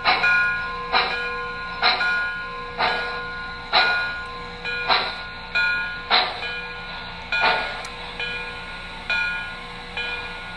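Sound system of an MTH O-scale EST Class 241A model steam locomotive playing steam chuffs through its speaker. There is one sharp chuff about every second at first, spacing out as the model slows to a stop, over a steady hiss and hum. The chuffs cease near the end, leaving the steady hiss.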